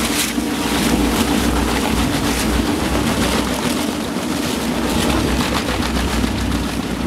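Double single-shaft shredder running under load as woven plastic bags are fed into it: a steady motor drone with a constant low hum, overlaid by a dense, irregular crackle of the rotor tearing the bags.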